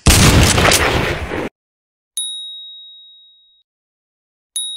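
A loud hiss of noise for about a second and a half that cuts off suddenly, then two high, bell-like ding sound effects about two and a half seconds apart, each ringing and fading away over about a second and a half.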